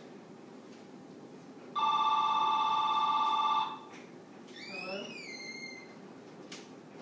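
Telephone ringing once with a fast-warbling electronic trill, lasting about two seconds and starting about two seconds in. About a second later comes a brief high gliding sound that rises and then falls.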